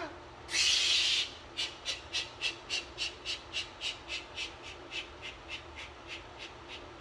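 Hard breathing from a man straining through chin-ups: one long forceful exhale about half a second in, then a steady run of short, quick puffs, about four a second, gradually fading.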